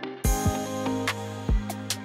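Background music; a drum beat with cymbals comes in about a quarter of a second in over sustained instrumental notes.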